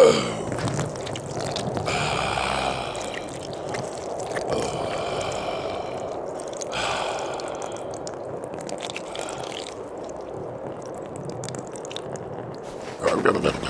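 A cartoon yeti's sharp gasp, then a long liquid trickling and splashing of the yeti urinating into the snow, with another short vocal sound near the end.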